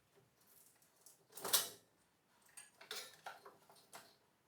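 Metal parts or tools clanking during engine disassembly: one loud clank about a second and a half in, then several lighter clinks.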